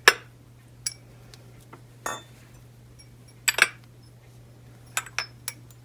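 Small glass toothpick holders clinking and knocking as they are set down and arranged on a stand, a series of separate light taps with the loudest right at the start.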